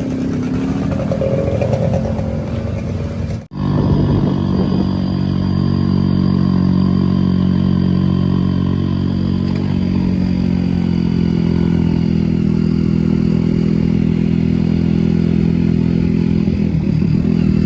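Trail motorcycle engine running. It breaks off sharply about three and a half seconds in, then runs on at a steady, even pitch.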